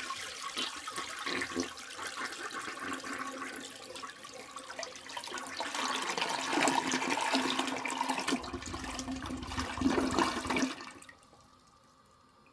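Toilet flushing: water rushing through the tank and bowl, growing louder with a deep rumble near the end, then stopping abruptly about eleven seconds in and leaving only a faint tail.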